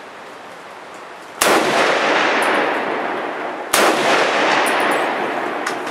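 Two shots from an M1 Garand rifle in .30-06, a little over two seconds apart, each with a long echoing tail that dies away slowly.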